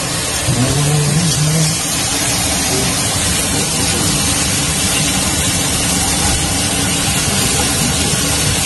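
Steak sizzling in a frying pan on the stove: a steady hiss.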